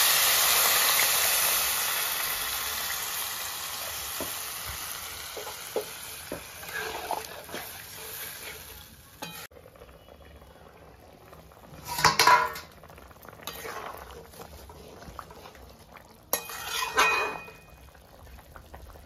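Water poured into a hot kadai of fried cauliflower and potatoes, hissing and sizzling loudly, the sizzle dying away over about nine seconds as the pan cools. It stops abruptly, and later two short metal clatters come from a steel bowl lid and ladle on the pan.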